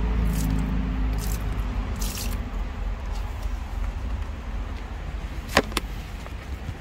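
Rice-washing water poured from a plastic container onto the soil of a planter, splashing and dripping. Two sharp knocks come about five and a half seconds in.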